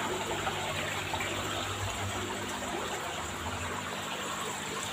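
Steady rush and trickle of water circulating through rows of aquarium tanks and their sump filtration, with a faint low hum underneath.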